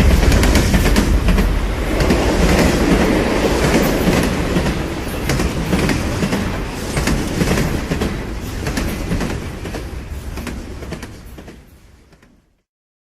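A train running, its wheels clattering over the rails with many sharp clicks over a heavy rumble, fading away to silence near the end.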